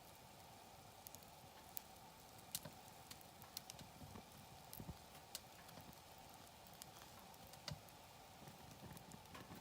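Wood fire crackling, with sharp pops and snaps at irregular moments over a faint steady background noise.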